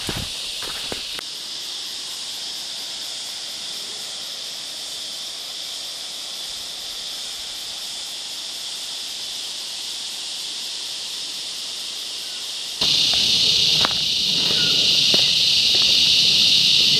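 Cicadas droning in a steady, high-pitched chorus that becomes much louder about thirteen seconds in, with footsteps on dry leaf litter near the start and again near the end.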